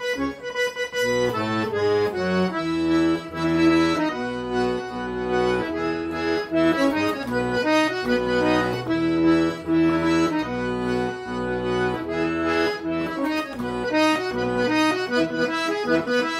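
Accordion playing an instrumental interlude of a forró pé-de-serra tune: a melody over a rhythmic bellows-and-bass accompaniment, with no singing.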